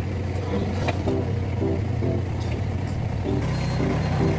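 An engine running steadily with a low hum, with short pitched notes coming and going over it.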